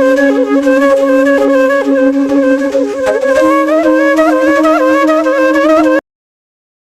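Background music: a flute-like melody wavering over a steady held drone note, which steps up in pitch about three seconds in. The music cuts off suddenly near the end.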